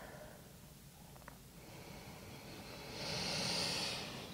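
A person's slow, deep breath, a soft hiss that swells about two seconds in and fades just before the end.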